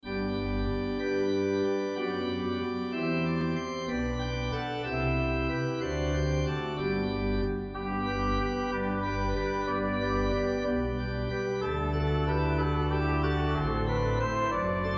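Pipe organ music: sustained chords over a bass line that moves in held notes, starting at once out of silence.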